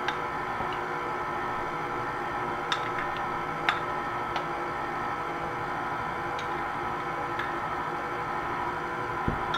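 KitchenAid Classic Plus stand mixer running at low speed, a steady motor hum and whine as it beats a thick cream cheese pound cake batter, with a few light clicks scattered through.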